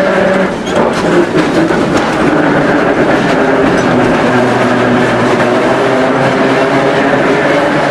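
Electric street tram running on its rails, heard from the open front platform: a steady hum from the running gear, with a cluster of wheel clacks over the track between about one and two seconds in.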